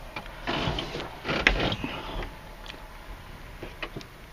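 Light clicks and rustling of a hand handling the cables and connectors at a Topcon MC-i4 machine control box, with one sharper click about a second and a half in.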